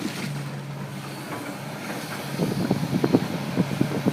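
A large engine running steadily with a low drone, with irregular crackling noises joining in about halfway through.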